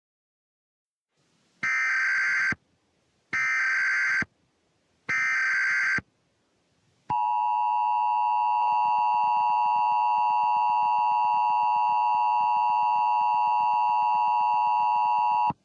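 Emergency Alert System header: three bursts of data tones, each about a second long, followed by the long steady EAS attention tone that holds for about eight seconds and then cuts off suddenly. Together they signal that an emergency message is about to be read.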